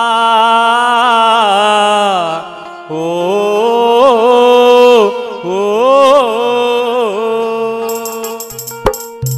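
Music: the slow, ornamented melodic introduction of a devotional song (bhajan), a gliding melody over a steady held drone note. Rhythmic percussion and bass come in near the end.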